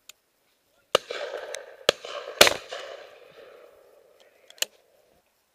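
Shotgun shots at flying game birds: three in quick succession about one, two and two and a half seconds in, the last the loudest, then a fainter one near the end, with echo trailing off after them.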